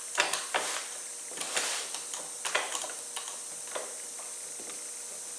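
Woodworking clamps being handled and tightened on a glue-up: a series of clicks and knocks with short scrapes, busiest in the first two seconds, then a few scattered clicks.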